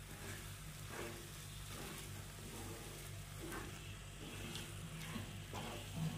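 Wooden spatula stirring and scraping a thick mix of flattened rice and condensed milk in a nonstick pan over a faint sizzle. The strokes come about once a second.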